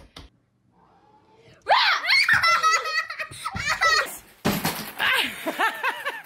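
Loud, high-pitched laughter and squealing from a child, starting about a second and a half in.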